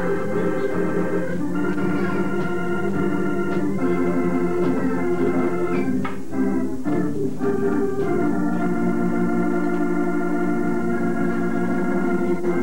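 Organ playing sustained chords, changing chord every couple of seconds.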